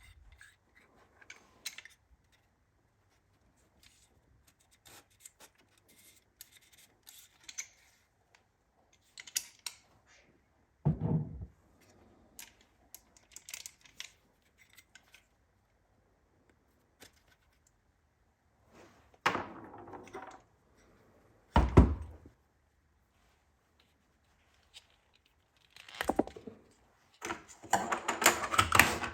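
Handling noises from a hand-held air belt sander being reassembled: scattered clicks and scrapes as its belt cover is put back on, with several louder thumps and quiet gaps between. The motor is not running.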